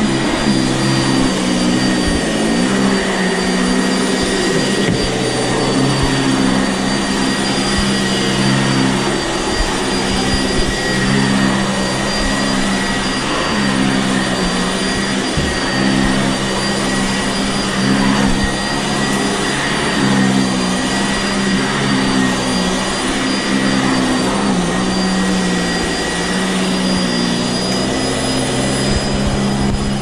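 Sanitaire SC679J heavy-duty upright vacuum cleaner running steadily while pushed over carpet. It makes a constant motor hum with a thin high whine on top, and its pitch dips and recovers a few times.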